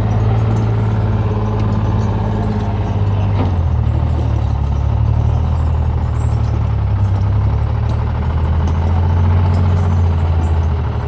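Skidder's diesel engine running steadily, its engine speed dropping about a third of the way in and picking up again near the end.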